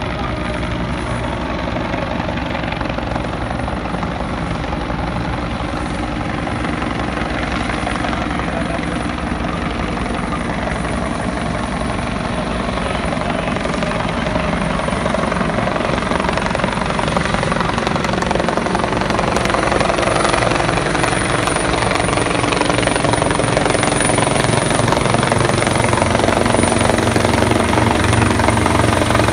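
Police helicopter flying close by, its rotor and engine noise a steady throb that grows louder as it approaches.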